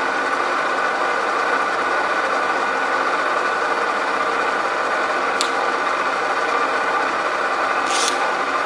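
Bridgeport 1 hp vertical milling machine head running steadily, its spindle turning with an even hum and whine. Two brief clicks, one about five and a half seconds in and a slightly longer one near the end.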